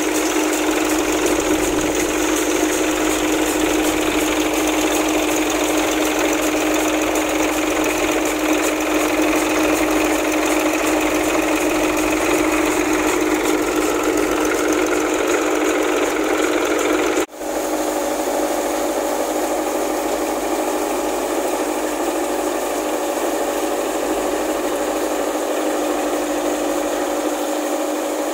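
NVT (New Vishvakarma) tractor-driven thresher running steadily as dry crop plants are fed into it, a constant mechanical hum with a rushing hiss of threshed material. The sound cuts out for an instant about two-thirds of the way through and comes back at a slightly different pitch.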